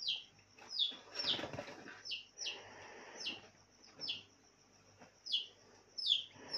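A small bird chirping over and over: short, quickly falling chirps, roughly one or two a second.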